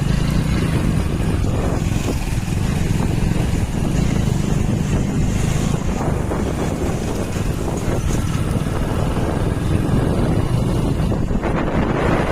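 Wind rushing over the microphone on a moving motorbike, with the engine's steady low drone underneath.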